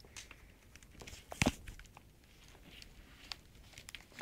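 Two dogs, a German Shepherd and a Shih Tzu, scuffling on a blanket: fabric rustling and scattered paw clicks, with one louder knock about one and a half seconds in.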